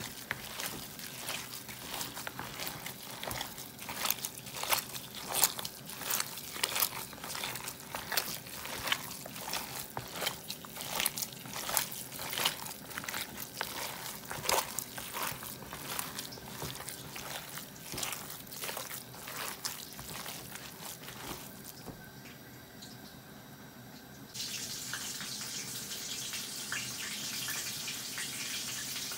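Minced meat mixed with raw egg and spices being kneaded by a rubber-gloved hand in a bowl: wet squelching and sticky clicks, many a second, for about twenty seconds. It quietens, then a steady hiss starts near the end.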